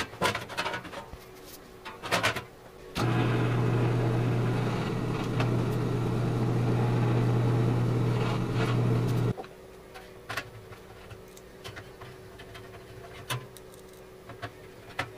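Benchtop drill press running with a steady motor hum for about six seconds, starting about three seconds in. Before and after it, light clicks and taps of hand work with a screwdriver on a sheet-metal PC case.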